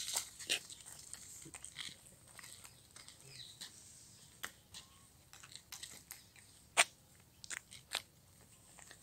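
Scattered short crunches and clicks, about a dozen, with the sharpest one a little before seven seconds in.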